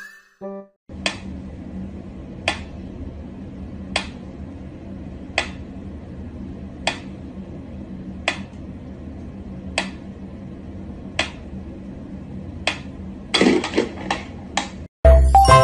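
Mechanical pyramid metronome ticking slowly and evenly, one sharp click about every one and a half seconds, over a low steady room hum. Near the end comes a quick flurry of irregular clicks and knocks.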